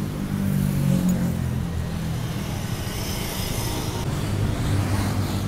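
Street traffic: motor vehicle engines running, with a motorcycle passing close by a few seconds in.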